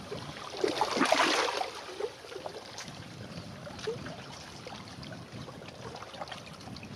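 Small waves lapping and splashing at the shoreline, with irregular gurgles and a louder burst of splashing about a second in.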